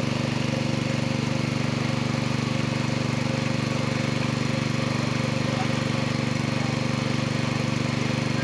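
Small engine running steadily with a fast, even chug.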